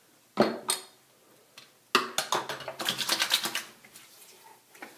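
Mennen Skin Bracer aftershave being handled and put on: two sharp clicks, then about a second and a half of quick pats and slaps.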